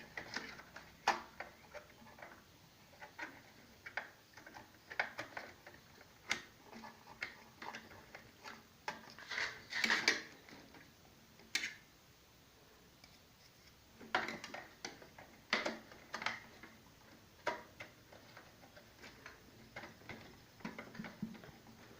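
Irregular plastic clicks and taps of RAM modules being handled and pushed back into a desktop PC's memory slots, with a short pause about halfway.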